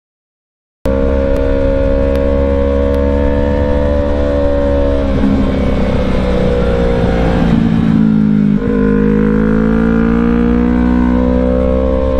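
Yamaha YZF-R3's parallel-twin engine running under way. The engine note dips around the middle, breaks briefly about eight and a half seconds in, then climbs again. It cuts in after under a second of dead silence from an audio glitch.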